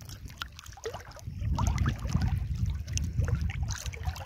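Water sloshing and splashing as a person wades through a shallow reservoir, with a gusty low rumble of wind on the microphone that grows stronger about a second in.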